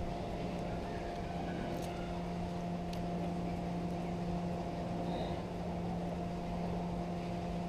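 Steady machine hum from the turning Ferris wheel's drive, one low droning tone that holds level throughout.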